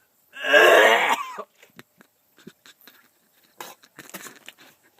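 A man gagging: a loud strained cry lasting about a second, shortly after the start, followed by scattered small clicks and mouth noises from a mouthful he cannot swallow.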